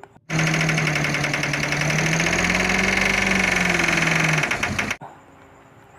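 Recorded truck engine sound, idling with a fast, even knocking rhythm. It starts abruptly, rises slightly in pitch in the middle and cuts off abruptly after about five seconds.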